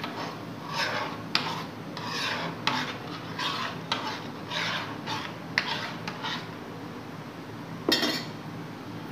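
Steel spoon scraping and rubbing around a steel kadhai as thick peanut chutney is stirred, in strokes of roughly one and a half a second that stop after about six seconds. A single sharp clank comes near the end.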